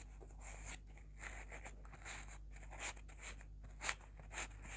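Satin ribbon loops being slid off a cardboard template: faint rustling and scraping of ribbon against cardboard, with a few brief louder scratches near the end.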